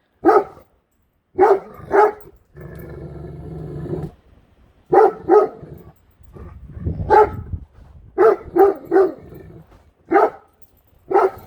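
Great Dane barking deeply at something it is afraid of, about eleven short barks in bunches of two or three, with a drawn-out low growl between the early barks.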